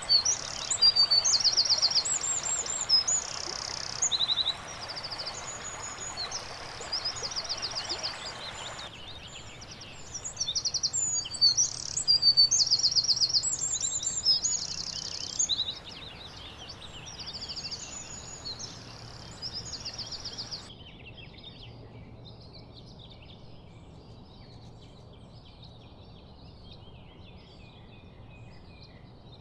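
Songbirds singing: short, high trilled phrases repeated every second or two. About 21 seconds in the sound switches abruptly to a fainter, busier chorus of chirps.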